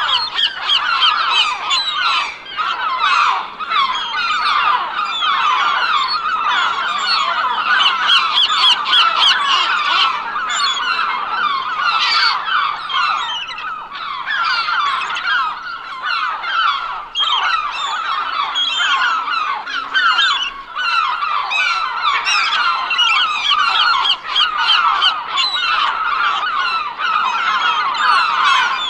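A large flock of gulls calling all at once, a dense, unbroken chorus of many overlapping short cries.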